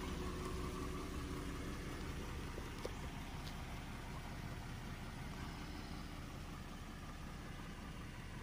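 2014 Ford Mustang with stock exhaust idling steadily, growing slightly fainter.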